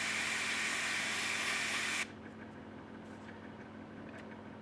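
Airbrush spraying weathering paint: a steady hiss of air that cuts off sharply about two seconds in, leaving a faint steady hum.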